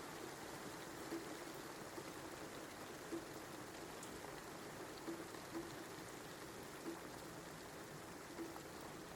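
Steady rain falling, with single louder drops landing at irregular intervals about once a second.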